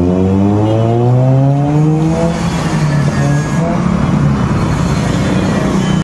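Toyota Vios four-cylinder engine revved through an aftermarket HKS muffler and modified elbow pipe. The pitch climbs steadily over the first two seconds, holds, then eases off near the end.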